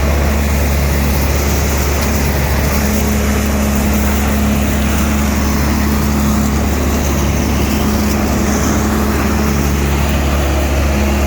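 Leaf vacuum machine running steadily: a loud, unbroken engine and blower drone with a deep hum.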